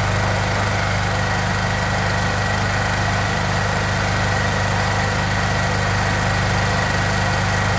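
Honda EP 2500CX petrol generator's single-cylinder four-stroke engine running steadily with a constant low hum. Its fuel tap has just been closed, so it is running on the fuel left in the carburettor and has not yet begun to die.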